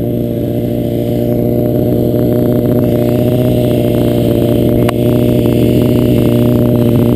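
Honda CBR600F4i inline-four engine idling steadily at an even pitch while the bike lies on its side after the crash. A single brief click comes about five seconds in.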